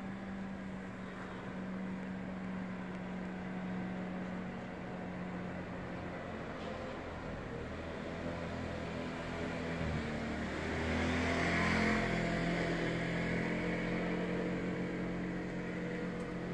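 A motor vehicle's engine running steadily, with a rush of noise that swells to its loudest a little past the middle, as when a vehicle draws near and passes.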